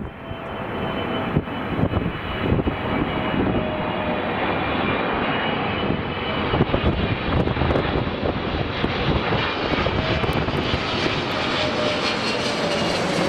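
Boeing 777 twin jet engines on final approach, passing low overhead with gear down. A steady jet noise carries thin whining fan tones and brightens toward the end as the airliner goes over. Wind gusts buffet the microphone in the first few seconds.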